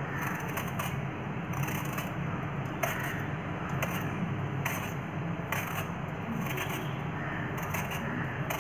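Serrated vegetable peeler scraping the skin off a raw apple in short, irregular strokes, about one or two a second, over a steady low hum.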